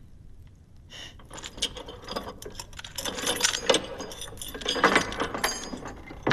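Metal keys and a lock and chain rattling and clinking as a barred jail cell door is unlocked, building up about a second in, with several sharper clanks toward the end.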